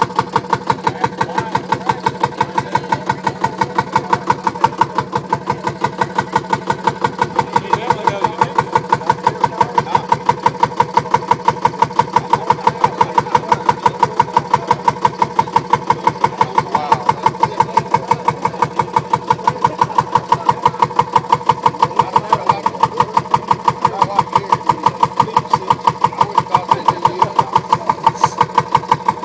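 Kerosene-burning tractor engine idling with an even, regular beat.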